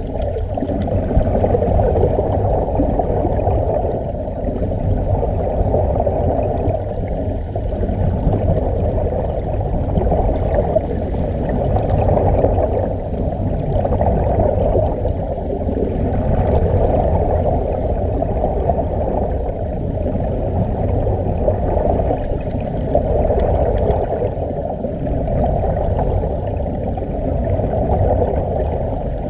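Muffled underwater rush of water and air bubbles, heard from below the surface, swelling every few seconds.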